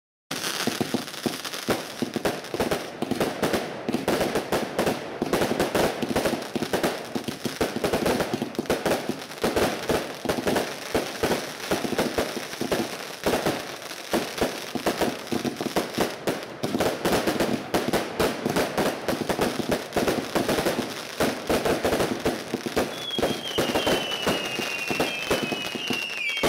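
Multi-shot firework barrages firing continuously, a dense run of rapid bangs and crackling reports several times a second. Near the end several whistling shots join in, each whistle falling in pitch.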